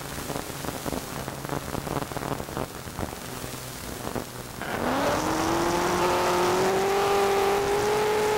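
Crackling static hiss with a low hum, then about two-thirds of the way in a louder engine drone starts, rising in pitch and then holding steady.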